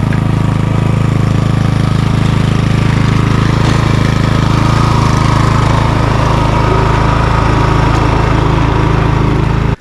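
Craftsman M430 twin-blade self-propelled gas lawn mower, its engine running loud and steady under load as it climbs a slope of loose dirt. The sound cuts off abruptly at the end.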